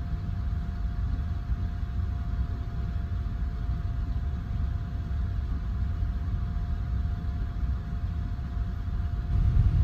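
Steady low rumble with a faint constant hum inside a compartment of a 285-series sleeper train. It grows louder just before the end.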